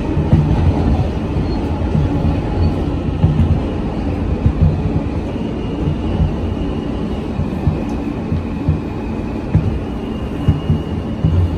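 Inside an R160A-2 subway car running on steel rails as it pulls into a station: a steady rumble with irregular wheel knocks and clacks. A faint high whine joins about halfway through.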